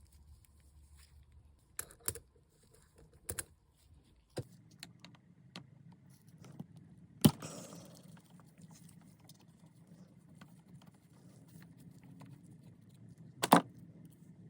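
Small metal parts and tools being handled during a motorcycle carburettor overhaul: scattered clicks and clinks, the loudest a sharp clank with a short ring about seven seconds in, and another shortly before the end, over a low steady background hum.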